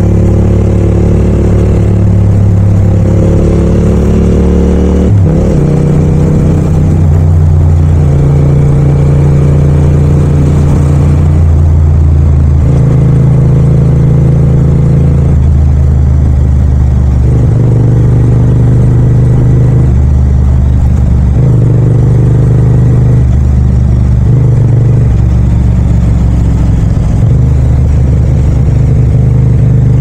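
Yamaha MT-07 (FZ-07) 689 cc parallel-twin engine and exhaust running under way in city riding, the engine note holding for a second or two, then stepping up or down as the throttle opens and closes. About five seconds in, the revs briefly rise, then fall away sharply.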